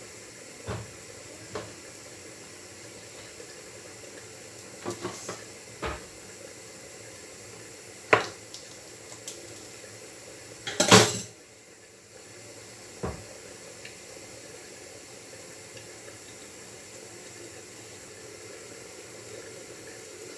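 Kitchenware being handled: scattered knocks and clatters of pots, lids, dishes and utensils, about eight in all. The loudest is a short rattling clatter about eleven seconds in, over a steady background hiss.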